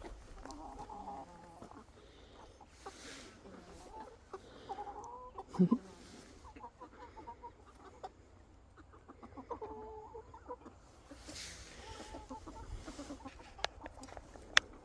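A flock of young chickens clucking, in short broken calls, with scattered small clicks. A short low thump comes about five and a half seconds in, and a sharp click near the end.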